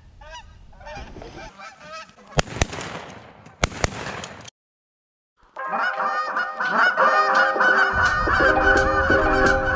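Canada geese honking, then a few sharp shotgun shots in two quick pairs, about two and a half and three and a half seconds in. After a second of silence, a large flock of Canada geese honks loudly and continuously.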